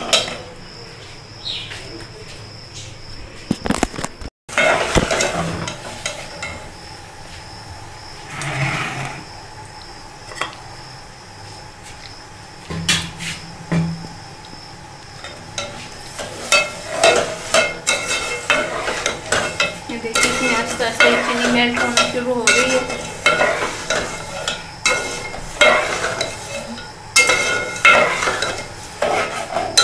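A metal spatula scraping and clinking against an aluminium pot while stirring sugar in hot, lightly sizzling oil as it browns. The scrapes come irregularly and grow busier in the second half.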